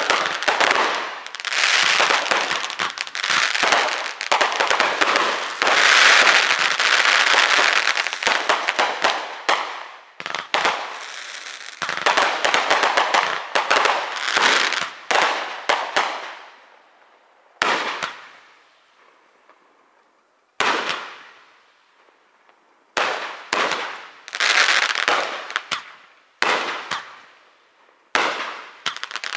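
Aerial fireworks display: a rapid barrage of overlapping bangs for about the first half. After that the bangs come singly, one or two seconds apart, each trailing off in a short echo.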